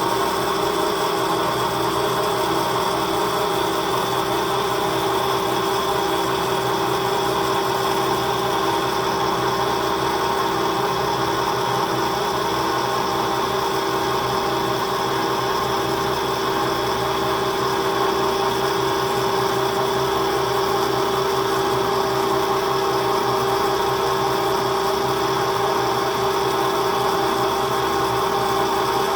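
Pandjiris welding positioner's electric drive running steadily, turning the table: a constant whine that holds one pitch throughout.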